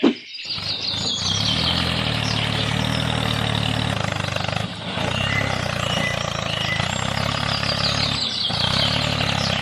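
Mini tractor's engine running steadily, starting abruptly at the outset, with brief dips about five seconds in and again about eight seconds in.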